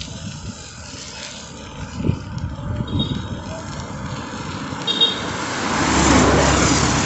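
Road traffic and wind noise heard from a moving bicycle, with a few small knocks from the bike. About six seconds in, a motorcycle approaching and passing close by grows loud.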